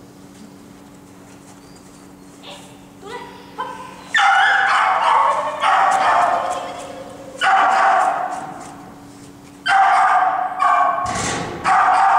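A small dog barking in loud, high-pitched bursts that start about four seconds in and come again and again, a second or two apart.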